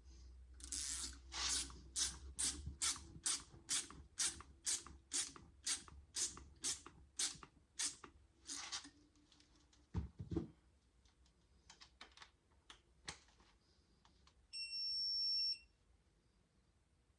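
Hand ratchet clicking in short regular strokes, about two a second, turning a cylinder head stud into the engine block. A couple of knocks follow, and near the end comes a single electronic beep about a second long, a camera's low-battery warning.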